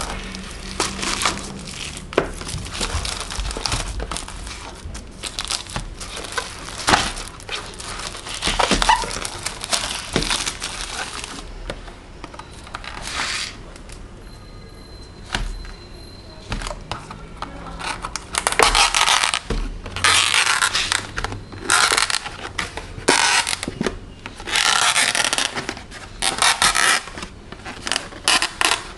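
Plastic film wrapper and lid of an instant yakisoba cup crinkling and tearing as they are pulled off by hand, in irregular rustling bursts. It goes quieter for a few seconds midway, then comes back in a run of loud crinkles as the lid is peeled back.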